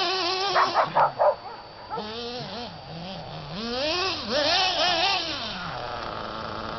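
Dog barking several times in quick succession about half a second in, then making drawn-out whining, yowling calls that rise and fall in pitch, excited while chasing a remote-controlled car.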